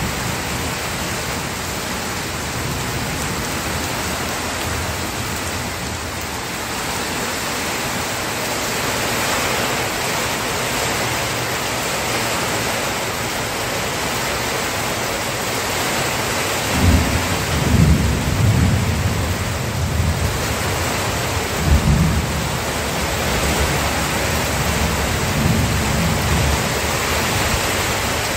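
Steady rain falling, with low rolls of thunder rumbling several times in the second half.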